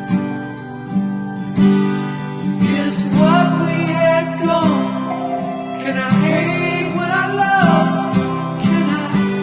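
Background music: acoustic guitar strumming chords, with a singing voice coming in about three seconds in.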